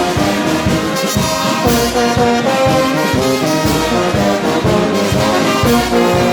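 Brass band music, with trombones and trumpets playing a melody over a steady drum beat.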